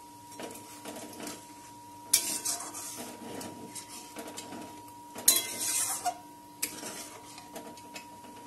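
A metal spatula scraping and knocking against a metal kadai while stirring water into a curry masala, in irregular strokes with the loudest knocks about two and five seconds in.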